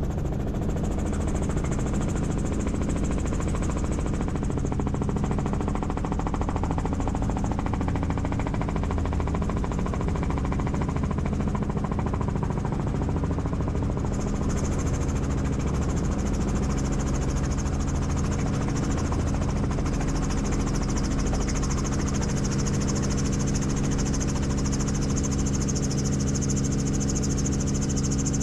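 Helicopter in flight: a steady drone of rotor and engine with a constant low hum, and a high hiss that strengthens about halfway through.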